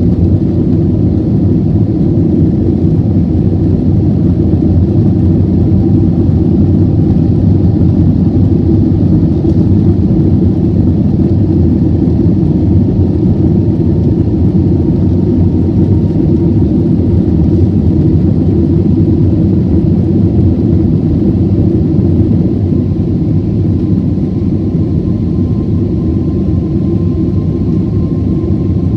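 Airliner cabin noise during the climb after takeoff: a loud, steady engine and airflow rumble, with a faint thin tone that rises slightly in the second half.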